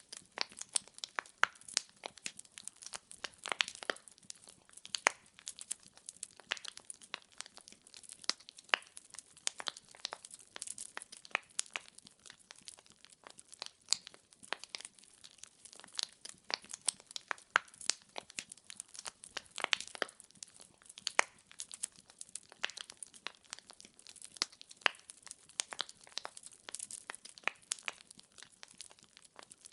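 Burning firewood crackling and popping, with irregular sharp cracks several times a second over a soft hiss.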